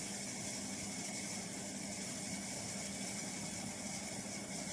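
Steady low hum with a hiss over it, a machine running in the background of the room, unchanging throughout.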